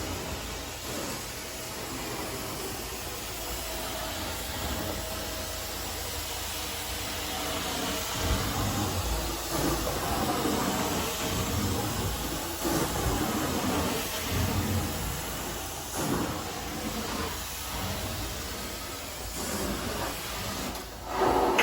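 Carpet cleaning machine at work on carpet: a steady hiss of spray and suction from the extraction wand, with low rumbling swells in the middle as the strokes go on.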